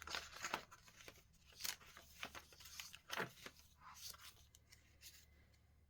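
Faint rustling and light clicks of paper as junk journal pages and paper tags are handled and turned.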